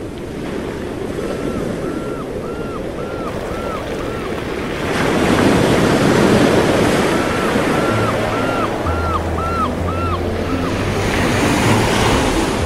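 Sea waves washing with a steady rush and some wind, overlaid with two runs of short, repeated high calls. Low music notes come in about two-thirds of the way through.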